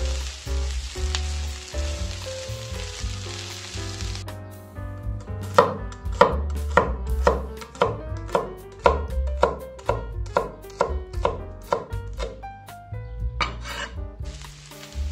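Oil sizzling under diced potatoes, zucchini and green pepper frying in a pan, then, about four seconds in, a cleaver chopping spring onions on a wooden board at about two strokes a second. Near the end the blade scrapes across the board scooping up the slices.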